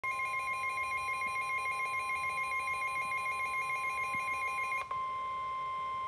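Midland NOAA weather alert radio sounding a severe thunderstorm warning alarm: a loud, steady high-pitched tone with a fast pulsing edge. About five seconds in there is a brief break, and the plain steady warning alarm tone of the weather radio broadcast carries on.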